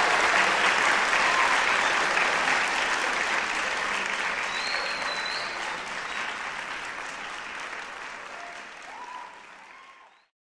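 Audience applauding, fading steadily and cutting off just before the end.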